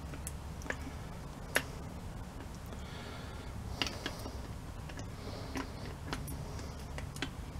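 Irregular light metallic clicks and taps from hands working a return spring onto the greased fulcrum pin of a WW2 Weasel starter's shift lever, the sharpest about one and a half seconds in, over a steady low hum.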